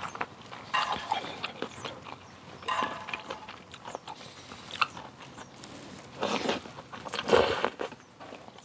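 A person eating at close range, chewing and crunching (clam kalguksu noodles and fresh kimchi), with scattered small clicks and two louder, longer noisy bursts about six and seven seconds in.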